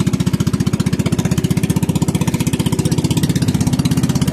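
Small engine of a motorised outrigger boat running at a steady speed underway, with a rapid, even pulsing beat.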